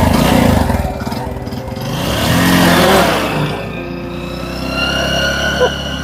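Motorcycle engine running and revving, loudest about two to three seconds in.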